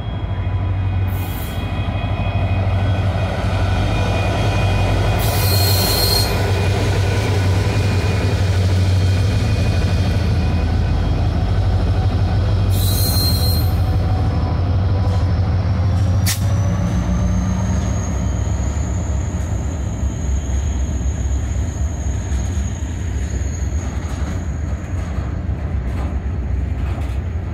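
Norfolk Southern diesel locomotive passing close at slow speed, its engine a steady low drone. After about sixteen seconds the covered hopper cars roll by and a high, steady wheel squeal sets in and holds.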